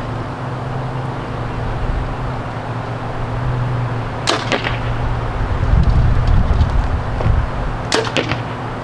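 Two compound bow shots, nearly four seconds apart, each a sharp snap followed by a quick second knock, with wind rumbling on the microphone.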